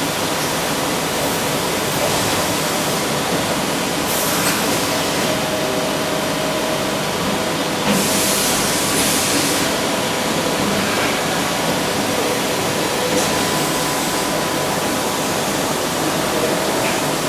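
Steady hissing machine noise with a faint whine from an automated lathe cell with a gantry loader running, and a brief rise in high hiss about eight seconds in.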